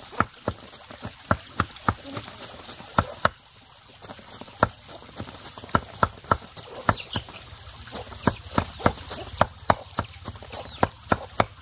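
Cleaver chopping leafy vegetable greens on a wooden cutting board: sharp, uneven knocks about two to three a second, with a short pause a little after three seconds in.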